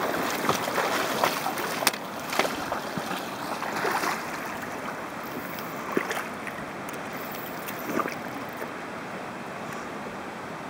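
River water rushing steadily around a wading angler, with a few brief sharp sounds, such as water slaps or splashes, standing out now and then.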